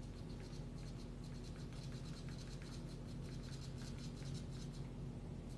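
Quiet room tone: a low steady hum with faint, scattered light taps of fingertips on a phone screen.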